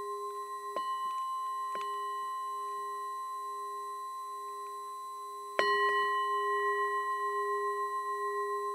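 A 6-inch cast bronze wind bell ringing as its clapper strikes it. There are two light strikes near the start and one hard strike a little after halfway. Each strike renews a long ring with a low note and several higher overtones, wavering slightly as it slowly fades.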